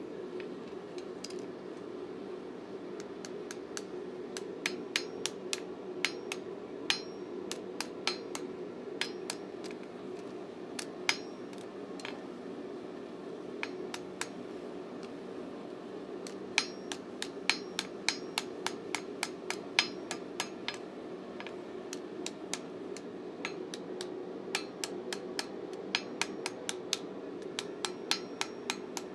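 Light hammer taps on steel, irregular and sometimes several a second, each with a short bright ring, over a steady background drone.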